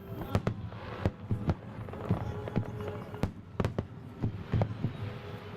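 Aerial fireworks shells bursting in a rapid, irregular volley of sharp bangs, over a dozen in a few seconds.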